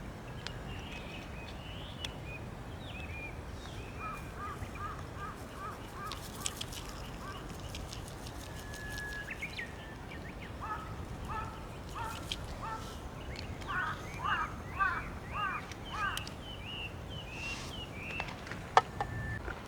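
Wild birds calling at a riverside, in runs of short repeated chirps that grow busier in the second half, over a steady low background noise. Near the end there is one sharp click.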